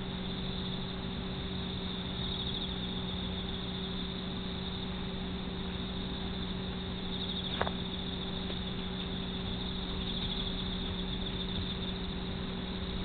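Steady low electrical hum and hiss, with a single sharp click a little past halfway.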